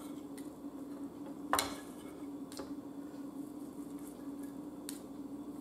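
A table knife scraping and clinking on a dinner plate while cutting steak: a few light, separate clinks, the loudest about one and a half seconds in, over a steady low hum.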